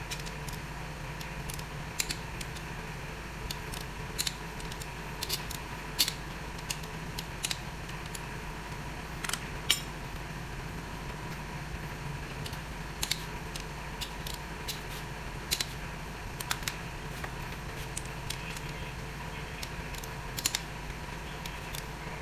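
Torque wrench ratcheting and clicking in scattered sharp ticks as the main bearing cap bolts of a Suzuki K6A block are tightened to 45 lb-ft.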